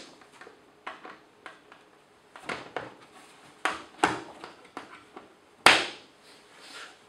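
Scattered knocks and clicks of a melamine cabinet and its metal hinges being handled on a workbench, the sharpest knock about six seconds in.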